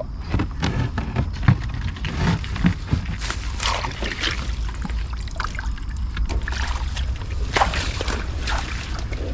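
A mesh fish trap is handled and emptied of its catch, then carried off through wet, leafy vegetation: irregular rattling, crackling and rustling.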